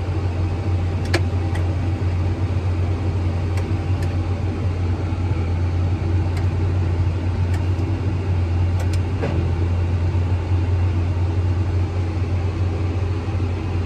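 Diesel engine of harvest machinery running steadily at a constant speed with a deep, even hum. A few light clicks come over the top of it.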